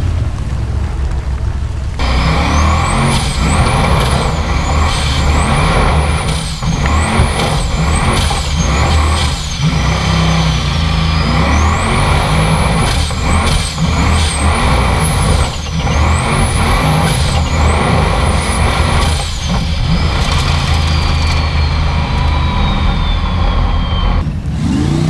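Formula Offroad buggy's engine heard from its onboard camera, revving hard and backing off again and again under heavy throttle, with a high whine that rises and falls with the revs and winds slowly down near the end.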